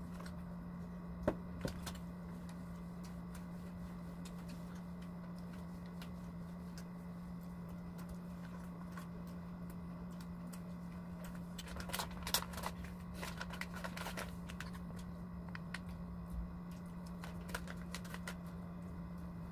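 Quiet eating sounds at a table: scattered small clicks of forks and utensils and the crinkle of food wrappers and a snack packet, with a denser patch of crinkling about twelve seconds in. A steady low hum runs underneath.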